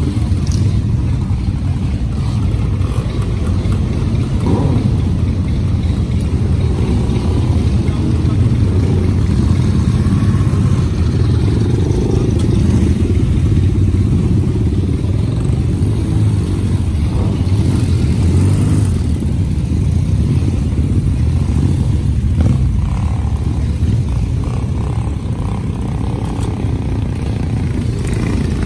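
Many classic and café racer motorcycles running together, riders pulling away slowly one after another past a line of idling bikes. A loud, steady engine sound from many bikes at once.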